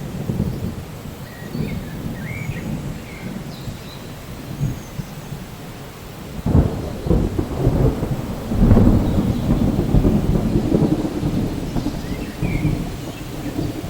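Thunder rumbling over steady rain. A louder peal breaks in about six and a half seconds in, swells to its loudest a couple of seconds later and then rolls away.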